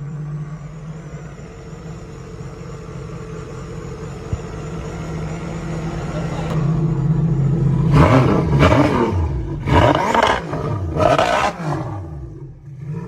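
An engine running with a steady hum, then revving hard in several loud surges from about eight seconds in.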